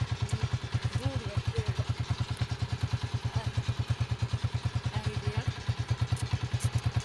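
A small engine running at a steady idle: an even, rapid low thumping of about ten beats a second.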